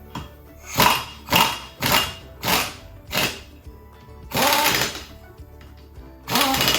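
Impact wrench run at a low setting in short bursts, five quick hits and then two longer runs, snugging the lug nuts onto a wheel.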